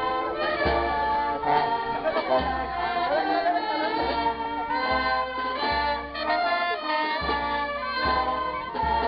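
Music with singing voices over sustained chords and a repeating low bass note.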